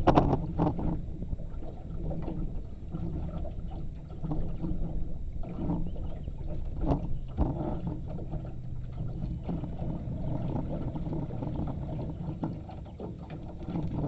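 A boat moving slowly on its electric drive: a low steady hum, with water splashing and knocking against the hull now and then.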